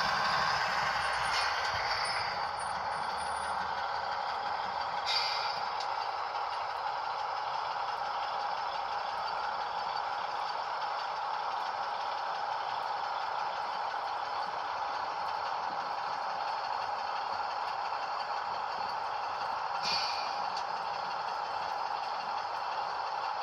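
A sound-fitted OO-gauge Class 156 model running on the layout: its DCC decoder plays a steady diesel-unit engine sound through the model's speaker, mixed with the rattle of its wheels and running gear on the track. Two brief hisses, about five seconds in and again near the end, sound like the decoder's brake or air sounds.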